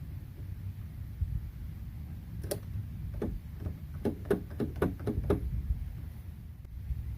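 A quick, uneven run of about eight sharp clicks and knocks over roughly three seconds, made by handling and fitting the door lock part into the truck's door handle.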